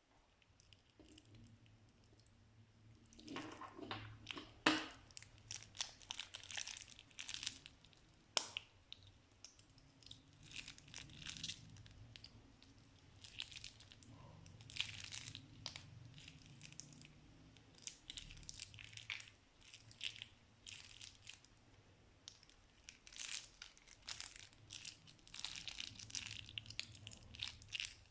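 Slime being squeezed and worked by hand, giving irregular crinkling and crackling bursts, over a faint steady low hum.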